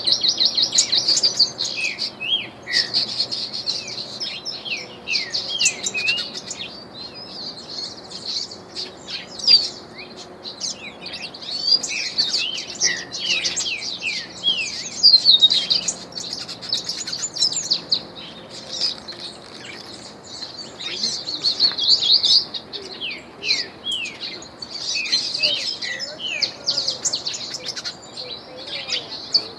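An ultramarine grosbeak (reinamora) singing from its cage: bursts of fast high trills mixed with quick downward-slurred whistles, phrase after phrase with short pauses between.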